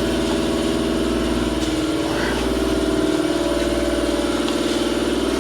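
Air compressor running steadily, a fast, even pulsing machine drone.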